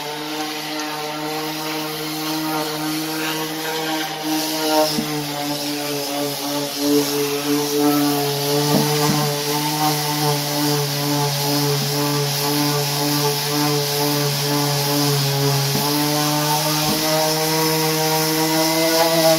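Electric random orbital sander running steadily, its motor hum mixed with the rubbing of the sanding pad on the wooden top of a speaker enclosure. It grows louder from about five seconds in, as the sander works across the surface.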